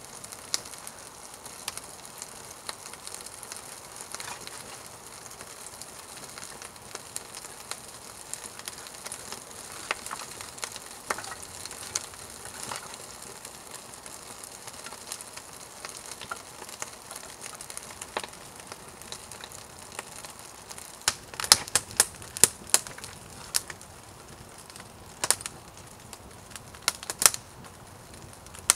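Small kindling fire of bark curls and thin split sticks crackling: a faint steady hiss with scattered light ticks. In the last third, clusters of louder, sharp snaps and clacks come in.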